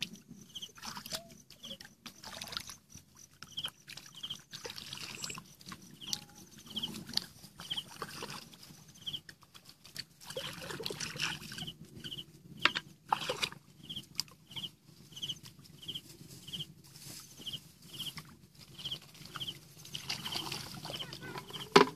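Hands splashing and sloshing in shallow muddy water in short, irregular bursts, busiest about halfway through. A short high chirp repeats about once or twice a second throughout.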